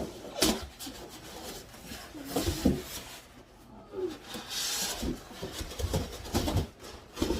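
A large TV's cardboard box and its packing being shifted and handled: rubbing and scraping with scattered knocks, and a few short squeaks.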